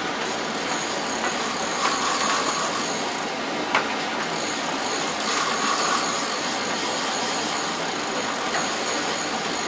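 Spinning reel's drag buzzing steadily as line is pulled off by a hooked fish running far out.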